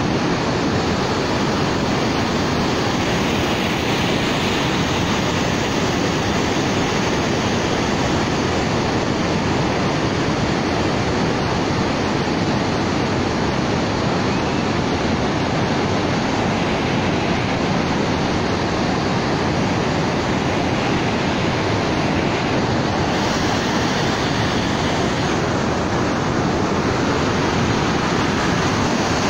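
Floodwater rushing out through the opened spillway gates of a dam and churning in the channel below, a loud, steady rush of water.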